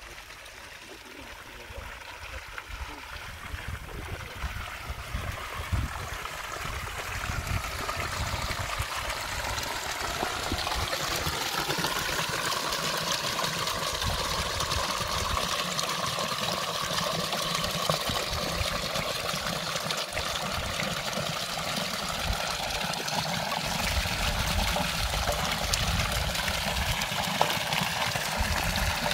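Spring water pouring from a metal spout into a stone fountain trough, a steady splashing that grows louder over the first ten seconds or so and then holds.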